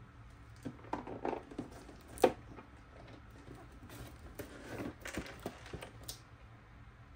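Cardboard toy box being handled and tipped, with loose parts rattling and knocking around inside it. There are scattered light clicks and one sharp knock about two seconds in.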